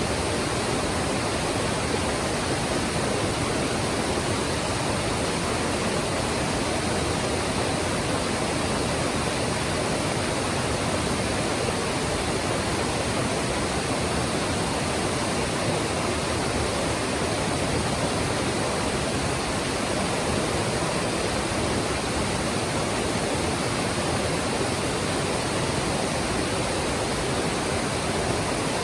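Mountain stream water rushing and splashing over rocks in a steady, unbroken wash.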